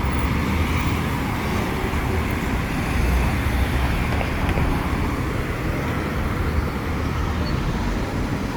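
Steady urban road traffic noise: a continuous low rumble of passing vehicles.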